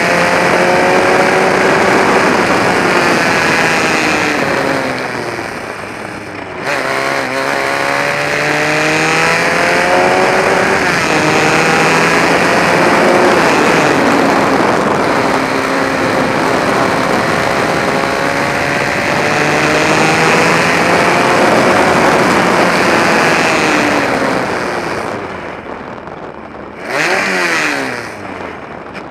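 Formula Ford race car's engine driven hard on track, its revs climbing and falling with throttle and gear changes. It eases off about five seconds in, comes back on sharply, and drops away again near the end after a short burst of revs.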